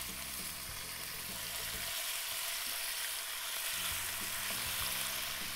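Cubes of lamb sizzling steadily in hot olive oil in a preheated cast-iron pot as they go in to be seared.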